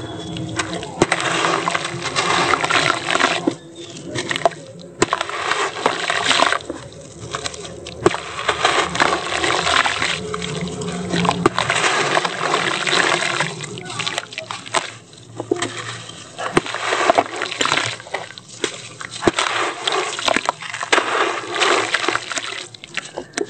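Wet sand-cement lumps crumbled and squeezed by hand: gritty crunching, with sand and small pieces falling and splashing into shallow water in a plastic tub. It comes in bursts with short pauses.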